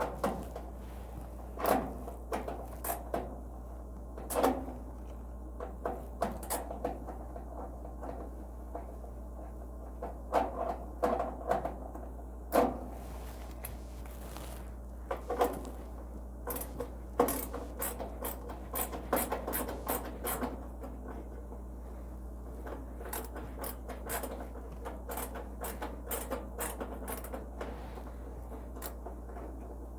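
Scattered clicks, knocks and light scrapes of hands and tools working on an appliance's metal panels, some in quick clusters, over a steady low hum.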